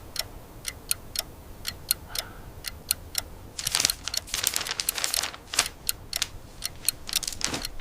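Basement water pipes ticking and rattling: sharp, uneven clicks at first, then a denser clatter from about halfway through. This is the stress noise of a pipe under pressure and close to bursting.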